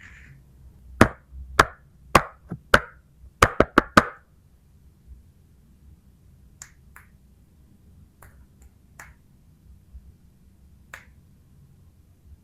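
Small hard plastic toy animals clicking and tapping: about eight sharp clicks in quick succession over three seconds, then a few fainter, spread-out ticks.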